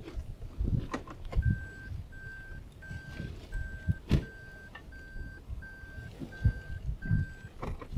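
A series of nine even electronic beeps at one steady pitch, each about half a second long, coming about one and a half a second; they start a little over a second in and stop near the end. Low knocks and thumps sound around them.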